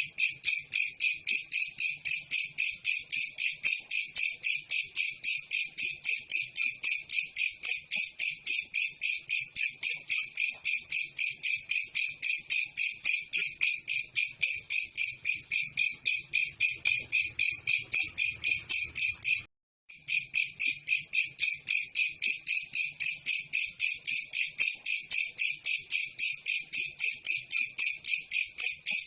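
Belalang kecek, a singing insect used as masteran song, calling with a loud, high, evenly pulsed buzz that repeats rapidly without change. It cuts out once for a moment about two-thirds of the way through, then resumes unchanged.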